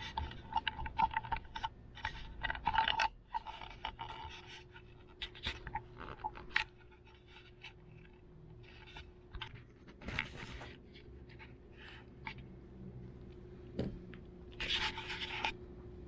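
Long-coat chihuahua puppy's claws scratching and scraping on pee pads and the plastic playpen as it moves about, a string of short scratches and clicks, busiest in the first several seconds with another short flurry near the end.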